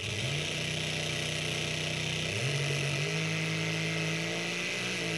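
The 1200-horsepower engine of a 1953 Studebaker replica drag car running hard on a drag run, heard from inside the cockpit: a steady drone that steps up in pitch twice, about a third of a second in and again just before halfway.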